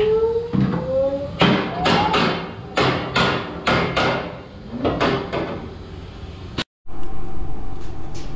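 A run of sharp knocks and clacks, about two or three a second, with a short rising whine in the first second and a half. The sound drops out for a moment near the end.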